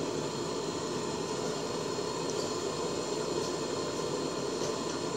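Gas stove burner running under a pot, a steady even hiss of the flame with no other events.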